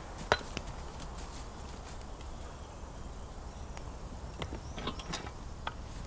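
Quiet outdoor ambience with a low steady rumble, a sharp click about a third of a second in, a few scattered small clicks, and a couple of faint bird chirps near the end.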